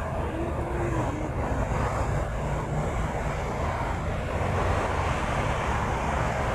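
Steady low rumble of outdoor city noise, growing slowly louder over the second half.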